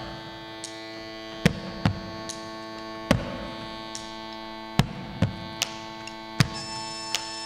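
Bombo legüero, the Argentine folk drum with a fur-covered hide head and wooden hoops, struck with sticks in about eight sparse, uneven beats over a held keyboard chord.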